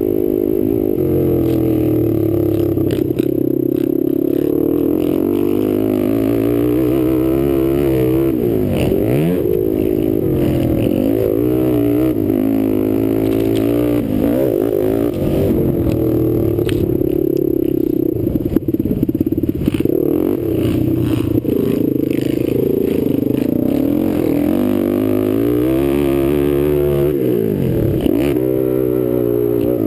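Kawasaki sport quad's engine running hard, its revs climbing and falling continually as the rider accelerates and backs off around a dirt track. There are deep dips in revs about nine, fourteen and twenty-eight seconds in.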